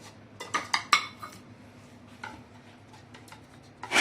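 Several sharp metallic clinks and knocks of a steel mixer-grinder jar and kitchen utensils, bunched within the first second and a half, then a few fainter taps. Right at the end a mixer grinder switches on with a loud whirr.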